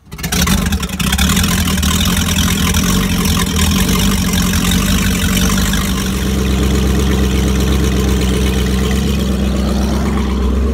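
MerCruiser 5.7-litre (350 cu in) V8 inboard engine catching right at the start and then idling steadily. It is running on a motor flusher so that it sucks antifreeze through the outdrive into the engine during winterizing. Its low exhaust rumble grows heavier about halfway through.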